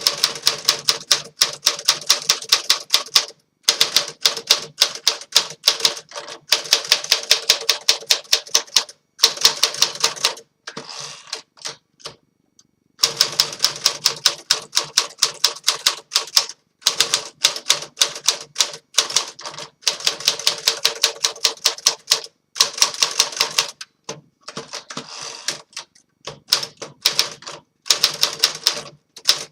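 1955 Smith Corona Silent Super manual typewriter being typed on in quick runs of keystrikes, the type bars hitting a new platen, with short pauses between bursts. About ten seconds in the typing stops briefly and there is a softer rustling sound, then it resumes.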